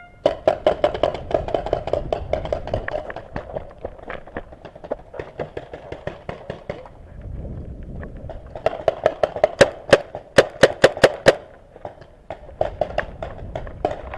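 Paintball markers firing in rapid strings of sharp pops, about four shots a second at the busiest, easing off briefly past the middle.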